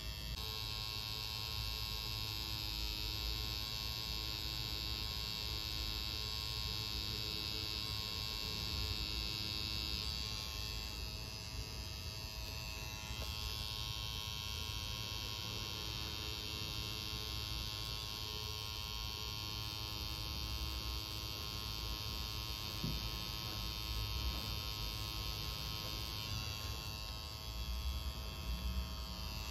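Electric tattoo machine buzzing steadily as it works red ink into skin, a high whine whose pitch wavers briefly twice.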